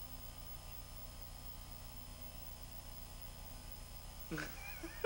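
Steady electrical mains hum and buzz, with its low overtones and a faint high whine over hiss. A voice starts about four seconds in.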